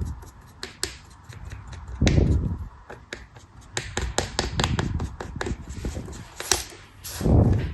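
Knife cutting through a crumbly craft material, giving a run of crisp crackling clicks, with two dull thuds about two seconds in and again near the end.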